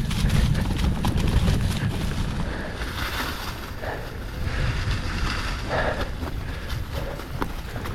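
Wind buffeting the microphone of a fast-moving mountain bike on a dirt trail, over tyre noise on dirt and scattered rattling clicks. The heavy wind rumble eases about two and a half seconds in, leaving the rolling noise and a few short scrapes.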